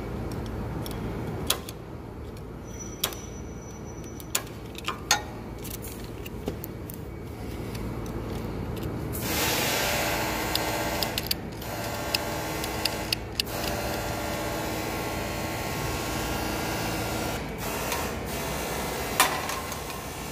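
The small petrol engine of a Poulan Pro machine running steadily. Sharp metallic clicks and taps of tools on the throttle linkage come several times, and the engine grows louder for several seconds about halfway through.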